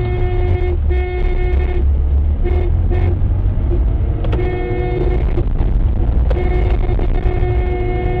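Car horn honking in repeated blasts, some about a second long and some short, over the steady low rumble of a car's engine and tyres on the road.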